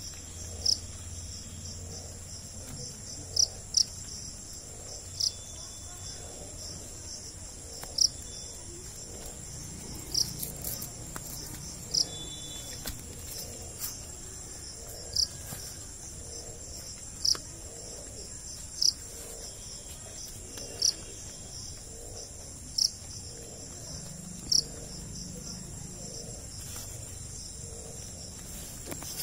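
Crickets calling: a steady, high-pitched trill, with short, louder chirps every second or two.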